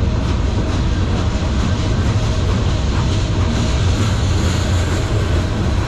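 Freight train boxcars rolling past close by: a steady, loud rumble of steel wheels on the rails.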